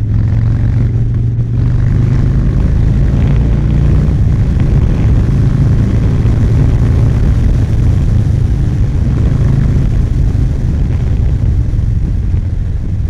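Harley-Davidson Sport Glide's V-twin, with a Stage 2 tour-cam kit, running steadily with a deep low note while the bike is ridden, with wind noise over it.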